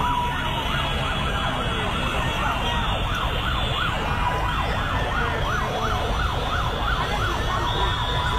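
Sirens yelping, their pitch rising and falling fast, about three times a second, over a constant low din of traffic, with steady higher tones coming and going.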